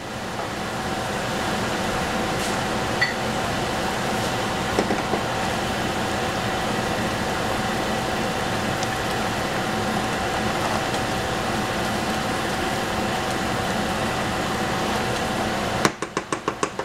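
Steady hiss of a strong gas burner flame under a saucepan of simmering risotto. Near the end comes a quick run of about seven knocks: a wooden spoon tapping on the pan.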